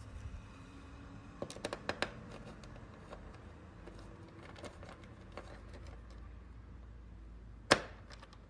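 Small clicks and taps of screws and a screwdriver on the TV cooling fan's housing as the screws are put back, with a cluster of clicks about a second and a half in and one sharp, louder knock near the end.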